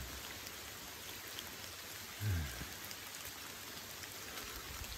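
Steady patter of rain on forest leaves, with scattered drop ticks. A short, low murmur of a man's voice comes about two seconds in.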